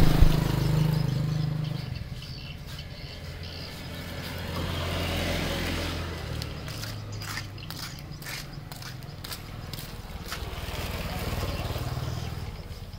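A motor vehicle's engine hums in the background. It is loudest at first, fades after about two seconds, swells briefly again midway and then dies down. A few faint clicks come about halfway through.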